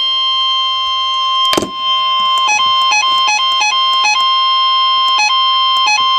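Electronic emergency alert tone: a loud, steady high tone, broken by a short click about a second and a half in. After that it keeps stepping down to a slightly lower pitch and back at irregular moments.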